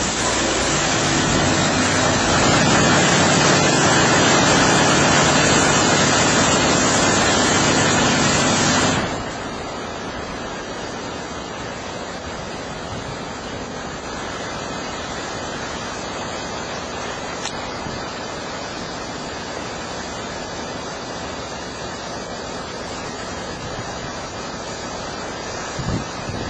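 Automatic touchless car wash spraying high-pressure water, a loud steady rush with a low hum under it. About nine seconds in it drops suddenly to a quieter steady water rush.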